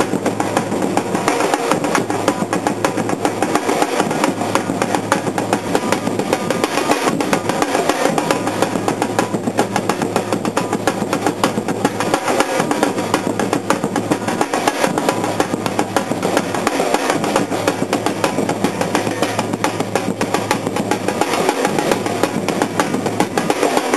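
Bloco afro drum corps playing a dense, steady rhythm on surdo bass drums and smaller stick-beaten drums.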